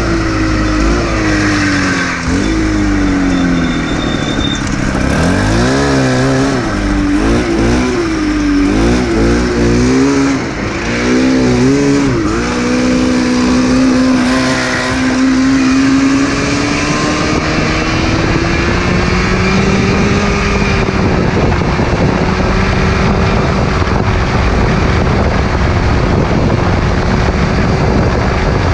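Yamaha Phazer two-stroke twin snowmobile engine in a go-kart, heard from the driver's seat. The revs swing rapidly up and down for several seconds as the throttle is blipped at low speed. It then settles into a near-steady, slightly rising pitch while the kart accelerates to about 46 mph.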